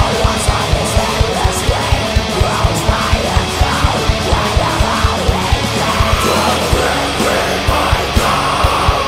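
Black metal song by a full band: distorted guitars, fast drumming and harsh yelled vocals. A long held higher note comes in about six seconds in.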